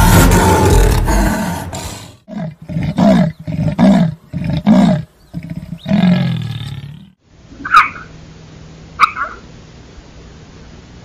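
A lion roaring, the full-throated roar breaking into a run of short, deep grunts that die away by about seven seconds in. After that it is much quieter, with a faint steady hiss and two short high calls.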